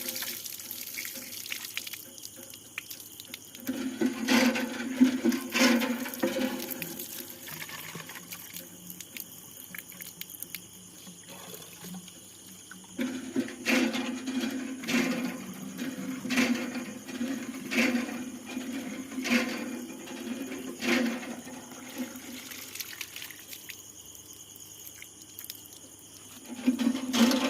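Water running and splashing at a tap, coming and going in stretches, with scattered knocks and clatter.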